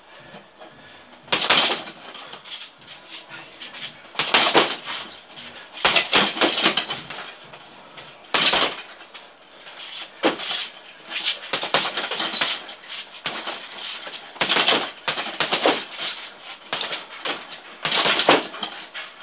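Gloved punches landing on a hanging heavy bag in irregular combinations, a hit or a short flurry every second or two, with the bag's chain jangling on its bracket.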